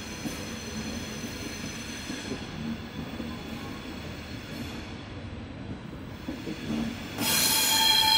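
ÖBB passenger coaches rolling slowly past on steel wheels with a low rumble and light knocking. About seven seconds in, a loud wheel squeal of several high tones sets in and holds.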